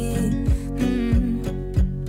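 Background song in an instrumental gap between sung lines: guitar with a steady drum beat about twice a second.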